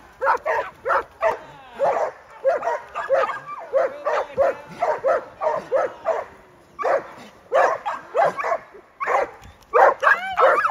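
Dogs barking over and over, a few short barks a second, with higher yelps near the end.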